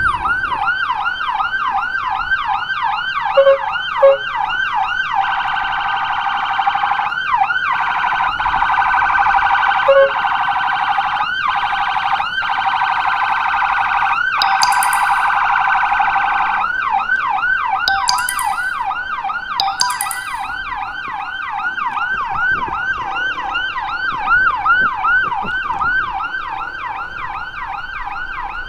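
Electronic emergency siren sounding a rapid yelp, about three or four rising-and-falling sweeps a second. From about five seconds in to about sixteen it changes to a steadier tone, then goes back to the yelp, with a few short sharp blasts mixed in.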